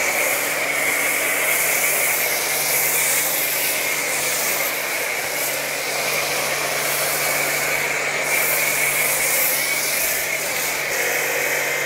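Aimex D7 1800-watt electric pressure washer running, its foam cannon spraying thick shampoo foam in a steady hiss, with the pump motor's low hum underneath.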